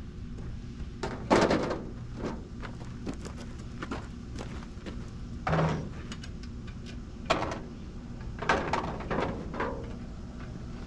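Metal tractor parts clanking and thunking as they are handled and set down, with a loud clank about a second in and several smaller knocks after it.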